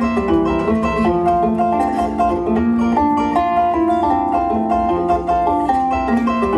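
Concert zither played live: a quick plucked melody rings over lower accompanying notes in a steady, unbroken run.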